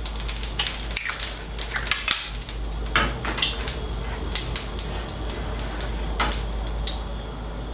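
Mustard seeds popping and spluttering in hot coconut oil, with fennel and cumin seeds frying alongside: irregular sharp crackles, several a second. The popping shows the oil is hot enough for the tempering.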